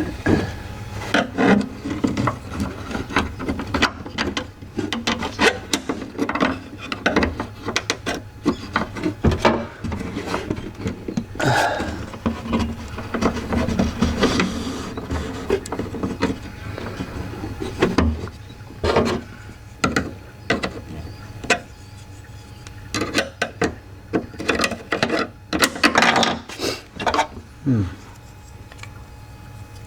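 Window regulator parts being handled and fitted by hand: scattered clicks, knocks and scraping of plastic and metal as a new clip is worked into place.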